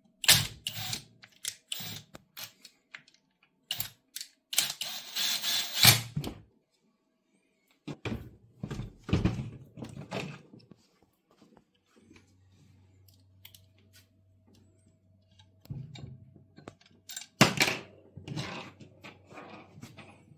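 Irregular clicks, knocks and clatter of a chainsaw body and hand tools being handled on a work table while the bucking spike is screwed on, with a longer rough scraping stretch about five seconds in and a sharp knock near the end.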